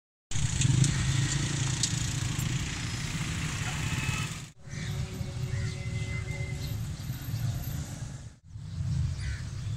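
Street traffic waiting at a closed railway level crossing: a steady low rumble of idling motorcycle and vehicle engines. The sound drops out briefly twice where the shot changes.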